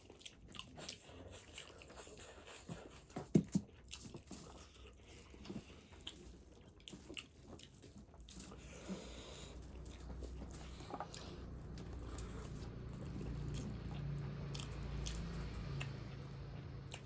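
Close-up chewing and biting of pork feet: scattered wet smacks and small crunches as the meat and skin are chewed, with a low steady rumble in the second half.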